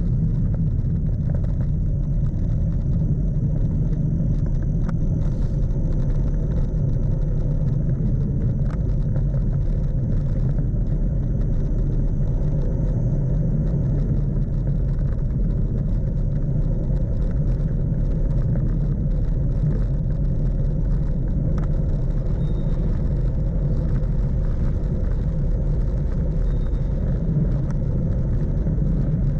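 Steady wind rumble buffeting the microphone, with tyre noise on asphalt, from a bicycle coasting fast downhill on a paved mountain road.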